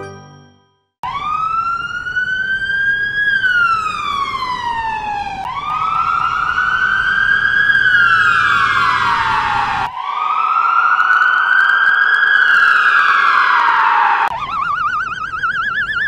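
Fire truck siren sound effect played as three long wails, each rising for about two seconds and then falling, the middle one with an echo added. About fourteen seconds in it switches to a fast wobbling warble.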